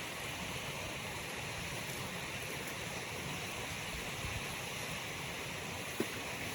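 Steady rushing of a nearby waterfall, with one short sharp click near the end.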